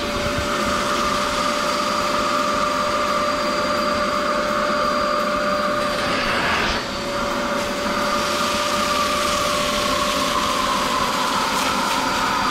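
Vacuum cleaner running steadily with a high whine and rushing air, its pitch and level dipping briefly about halfway through as the airflow changes.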